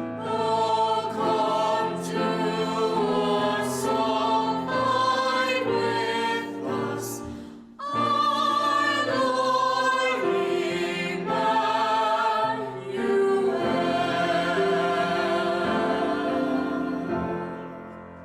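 High school choir singing a holiday choral piece. The singing breaks off briefly around eight seconds in, resumes, then the final chord dies away near the end.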